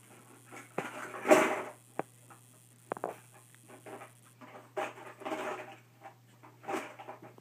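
Babies handling plastic toys: scattered sharp clicks and clatter of large plastic building blocks and a clear plastic container, with a louder noisy rustle about a second and a half in.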